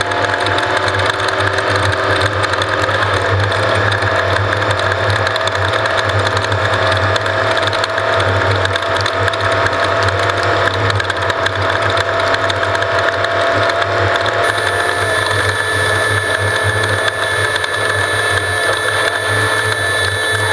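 Off-road race vehicle running at speed, heard from on board: a loud, steady mechanical din.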